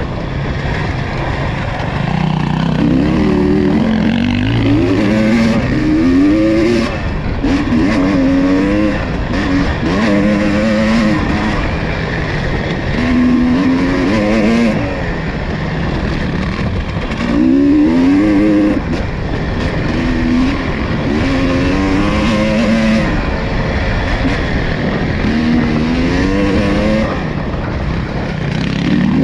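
ATV engine running under load on a trail, its pitch rising and falling over and over as the throttle is opened and eased.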